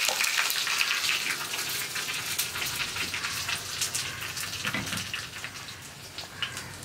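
Hot coconut-oil tempering of mustard seeds, shallots, dried red chillies and curry leaves sizzling and crackling in a small pan, a steady hiss that slowly dies down.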